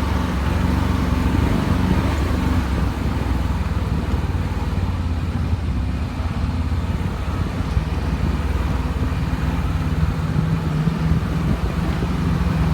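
Off-road vehicle's engine running steadily with a low rumble, its pitch shifting slightly near the end.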